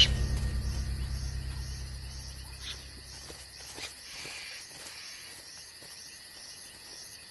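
Crickets chirping at night in a steady pulsing rhythm, about two pulses a second. Low music fades out over the first couple of seconds, and a few faint clicks sound.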